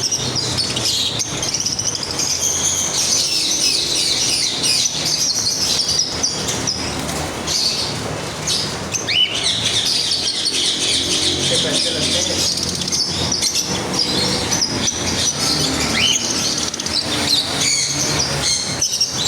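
Many birds chirping at once in a dense, unbroken chorus, with a couple of short rising whistles standing out.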